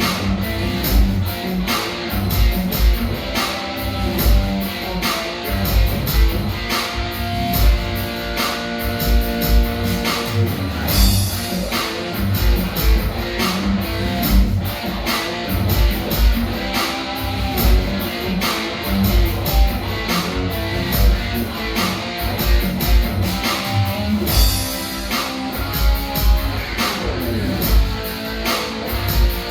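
Live band playing a rock song, electric guitars over a steady drum beat.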